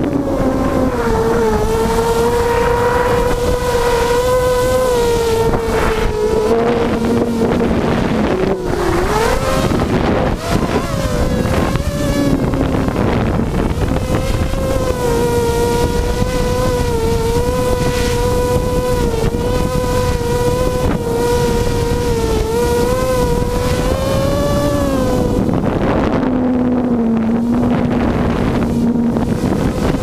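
Six brushless Tiger MN1806 2300 kV motors spinning 5x3 two-blade props on a small hexacopter in flight, recorded onboard: a steady buzzing whine whose pitch wavers with throttle, dipping and climbing again about nine seconds in. Wind rumbles on the microphone underneath.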